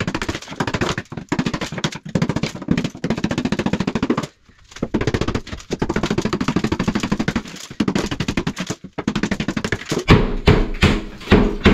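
Wall tiles being chipped off plasterboard with a chisel: a fast, continuous rattle of hits, broken by two short pauses. Near the end come a few louder separate knocks as chunks break away.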